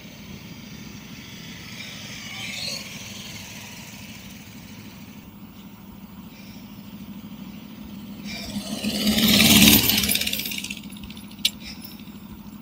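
A motor vehicle passes close by: its engine noise builds over a couple of seconds to a loud peak near the end, then fades. Under it runs a steady low hum, and two sharp clicks come after.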